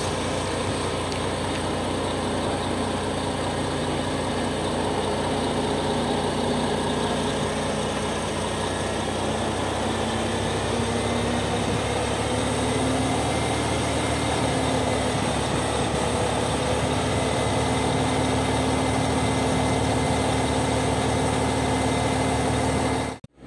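Liebherr LTM 1120-4.1 mobile crane's engine and hydraulics running steadily while the counterweight is lifted up to the superstructure, with a whine that rises slightly about halfway through.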